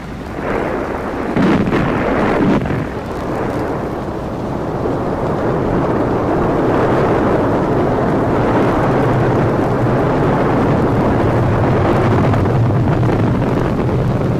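A ship's gun salvo rumbling out about two seconds in, then the steady roar of a rocket launch building up and holding.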